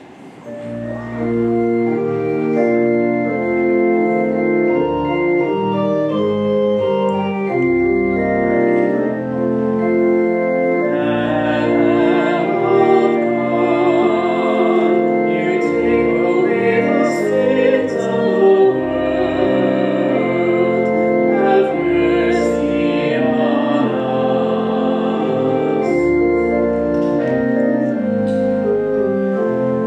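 Church organ playing slow, sustained chords, beginning about a second in. Singing with vibrato joins over the organ about eleven seconds in.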